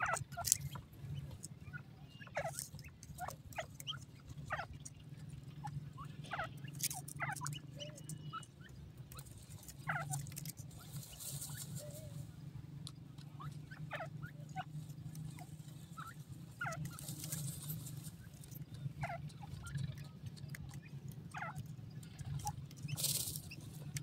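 Grey francolins giving many short, soft clucks and chirps, with a few rushes of scratchy dry-soil noise as they dust-bathe. A steady low hum runs underneath.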